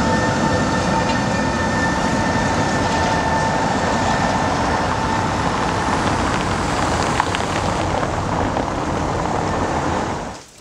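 Tram running on its rails, a steady rumble with a high ringing tone held through the first six seconds or so. There is a single click about seven seconds in, and the sound drops away suddenly near the end.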